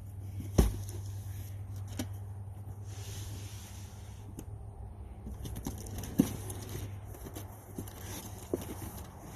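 Packages of pork sausage being handled: one sharp thump about half a second in, then a few lighter knocks and rustles, over a steady low hum.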